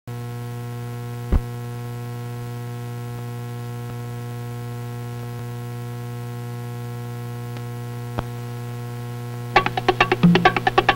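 A steady electrical hum with a ladder of overtones runs under an old film's countdown leader, broken by two sharp pops, the louder one about a second and a half in. Near the end, plucked guitar music starts with quick rhythmic picking.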